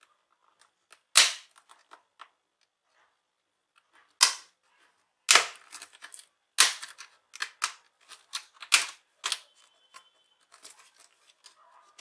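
Plastic snap clips of an Acer Aspire E15 laptop's keyboard panel popping loose as the panel is pried up off the base: a string of sharp, irregular clicks, five of them loud, with smaller clicks and rattles between.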